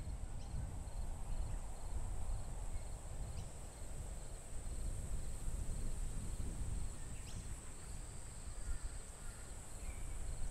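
Outdoor ambience: low wind rumble on the microphone under a steady high-pitched hum and faint, regular chirping.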